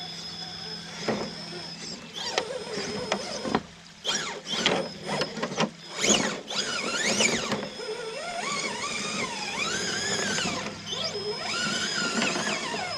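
Electric RC rock crawler's brushless motor and transmission whining, the pitch rising and falling as the throttle is worked. A cluster of sharp knocks and clatters comes in the middle, the tyres and chassis striking and scraping on rock as it climbs.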